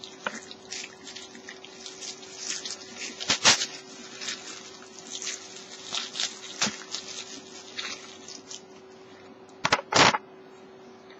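Thin clear plastic bag crinkling and rustling as it is pulled off a hard goggles case, with louder crackles about three and a half seconds in and again just before the end. A faint steady hum runs underneath.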